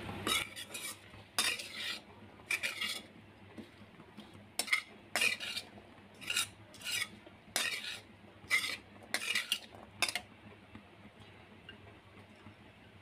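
Metal spatula scraping and stirring black chickpeas around an iron kadhai. There is a run of short, irregular scrapes, about one or two a second, that stops about ten seconds in.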